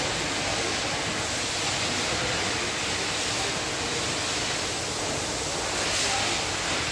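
Steady rushing air noise of a pedestal fan running, even and unbroken.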